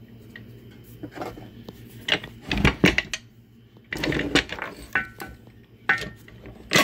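Metal UFP A-60 trailer brake actuator being turned over and handled on a wooden workbench: a series of clunks, knocks and scrapes, some with a short metallic ring. The loudest clatter comes about two to three seconds in.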